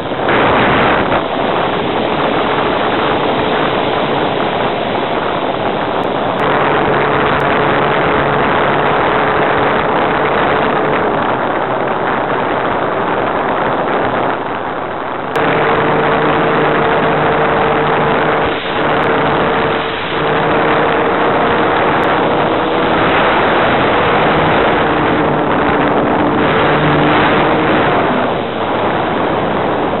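Electric motor and propeller of a small RC plane in flight, a steady whine over heavy wind rush on the onboard microphone. About halfway through the whine jumps louder and higher as the throttle goes up, and it fades near the end as the throttle is cut back.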